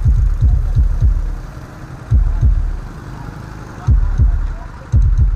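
Deep bass drum beats in a quick, even rhythm, about two to three a second, stopping briefly twice before picking up again; they belong to bass-heavy music.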